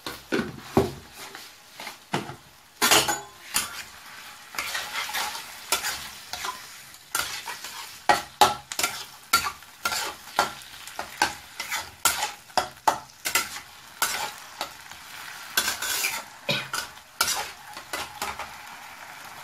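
A spatula stirring boiled, mashed bottle gourd in a kadai, scraping and knocking against the pan about twice a second over a steady sizzle from the frying.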